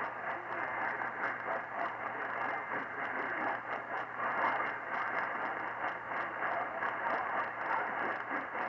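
Radio static from a weak station: a steady hiss with constant crackling and a faint low hum underneath.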